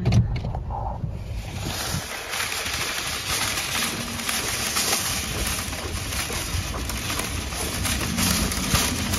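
A thump at the start, then a steady rushing of wind on the microphone, with the light clicking rattle of a wire shopping cart pushed over snowy pavement.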